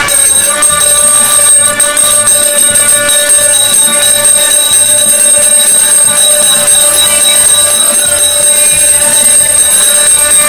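Small metal hand bell rung rapidly without pause, as it is during an aarti, giving a loud, steady, jangling ring.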